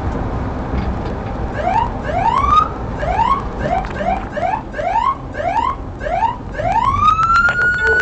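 Police car siren sounding a rapid series of short rising whoops, about two or three a second, then a long rising wail that holds near the end, over steady road and engine noise.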